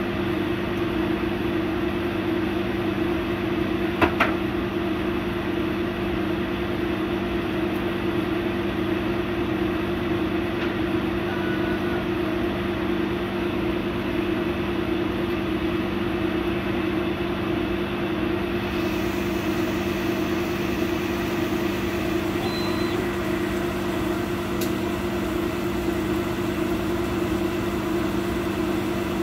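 100-watt laser cutter running as it cuts an MDF sheet: a steady machine hum with no change in level, and a single brief click about four seconds in.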